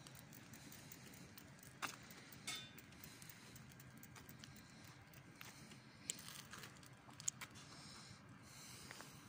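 Quiet station platform ambience with a low steady hum, faint footsteps and a few sharp clicks about 2, 2.5, 6 and 7 seconds in.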